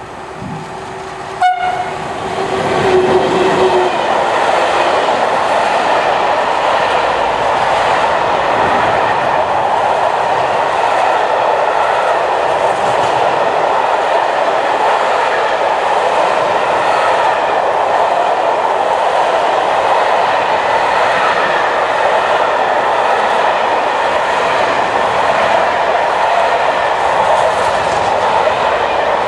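A train passing: a horn sounds one steady note for the first few seconds as it approaches, then the train runs past with a loud, even rushing rumble of wheels on rails that holds for over twenty seconds.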